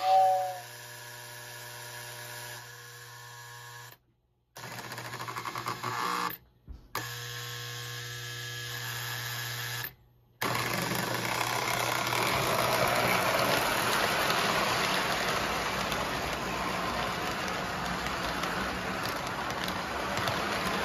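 Lionel 2055 Hudson O-gauge model steam locomotive being started: its whistle ends about half a second in, then a steady electric hum that cuts out briefly a few times. From about ten seconds in, the locomotive's motor and wheels run steadily as the train rolls along the track.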